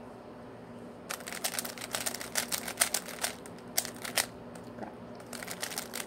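Plastic 3x3 Rubik's cube being twisted rapidly by hand: a fast run of clicking and clacking as the layers snap round. It starts about a second in, thins out past the middle, and a few more turns come near the end.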